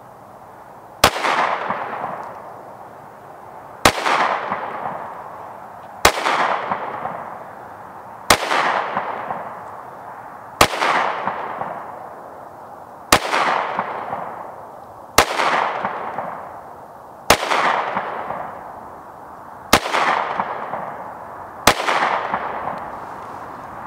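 Ten shots from a Glock 26 Gen5 9mm subcompact pistol, fired slowly about every two seconds, each sharp crack followed by an echo that fades over a second or so. The tenth shot empties the 10-round magazine and the slide locks back.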